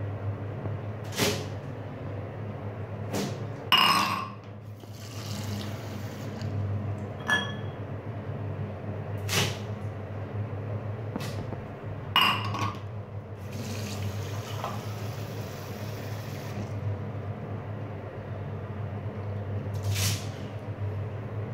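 Sharp knocks and clinks of a handheld cup being moved about, over a steady low hum, with a short rush of water about two-thirds of the way through.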